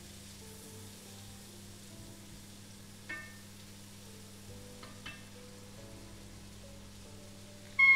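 Sliced onions sizzling steadily in melted butter in an enamelled cast-iron pot, stirred with a wooden spoon. Two short ringing clicks come about three and five seconds in, and a loud falling cry cuts in right at the end.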